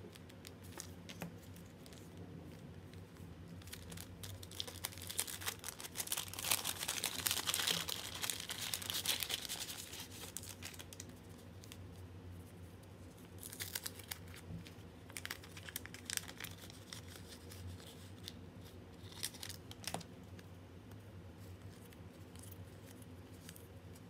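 Crinkling and rustling of sticker packs and stickers being handled and sorted by hand, with a long stretch of dense crackling about a third of the way in and a few shorter, sharper crinkles later.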